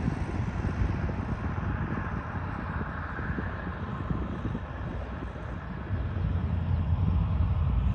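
Cat 140M motor grader's diesel engine running as the machine passes, growing louder from about six seconds in.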